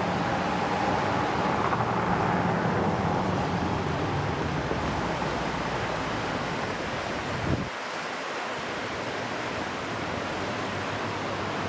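Steady rushing of flowing river water, with wind on the microphone. About two-thirds of the way through, the low rumble drops away abruptly.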